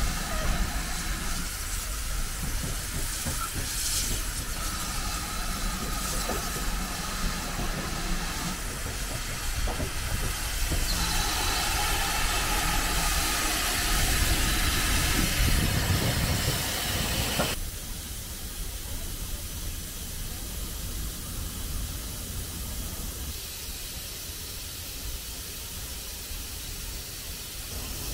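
Steam locomotive standing at a platform, steam hissing steadily. A little over halfway through, the sound drops abruptly to a quieter, steady hiss.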